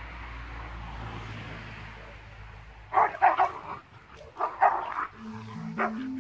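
A young Belgian Malinois barking in short sharp bursts from about halfway in: three quick barks, then a few more spaced out. A simple music melody comes in near the end.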